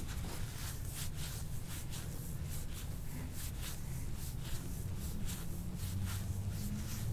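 Paper towel crinkling and rustling under hands rubbing and pressing on a patient's back and hip, in irregular short rustles several times a second.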